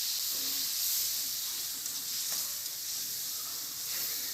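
Onion, garlic, ginger and cumin-coriander pastes frying in hot oil in a kadai, a steady high sizzle.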